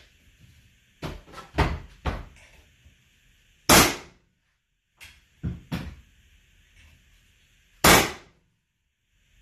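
Pneumatic hardwood flooring nailer at work on floorboards: a few lighter knocks, then one loud sharp shot as the nailer is struck with a mallet and drives a cleat. This happens twice, about four seconds apart.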